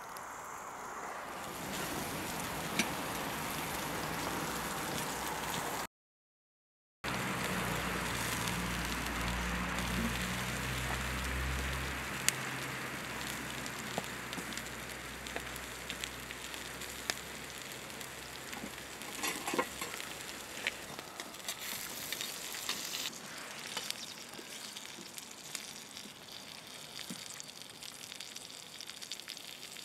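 Flattened whole chicken and a pan of vegetables in oil sizzling on a grill grate over wood embers, with scattered small pops and crackles. The sound drops out for about a second, then a low rumble runs under the sizzle for a few seconds.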